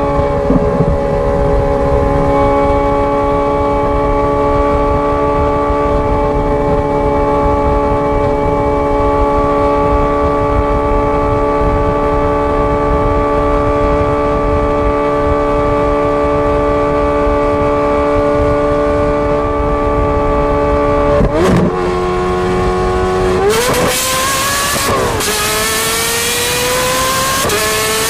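Ferrari 430 Scuderia's 4.3-litre V8 through a straight-pipe exhaust, held at steady revs for about twenty seconds. After a gear change it is pulled hard under full throttle, the note rising in pitch, with a quick upshift partway through the pull and another near the end.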